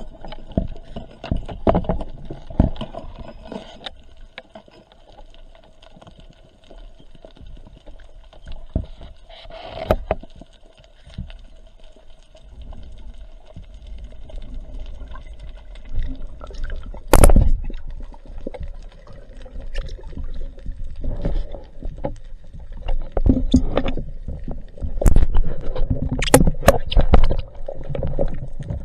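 Muffled underwater sound of water movement heard through a spearfisher's camera housing, over a faint steady hum, broken by sharp knocks of gear against the housing, the loudest about halfway through and several more near the end.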